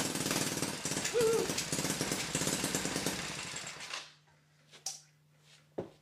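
Small petrol engine on a homebuilt ultralight car running loudly with a fast, even beat, then cutting off about four seconds in. After it stops, only a faint low hum and a couple of light clicks remain.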